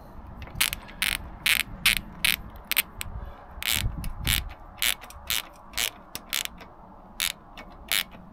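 Ratchet clicking about twice a second as it winds in a motorcycle's drive-chain adjuster bolt at the rear axle, taking the slack out of the chain.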